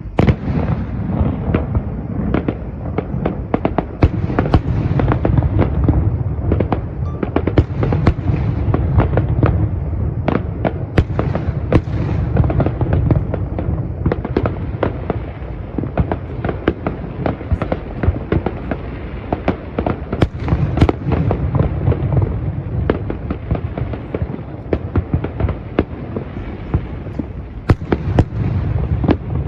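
Fireworks display: a dense, continuous barrage of bangs and crackles with a deep rumble underneath, starting suddenly at full strength.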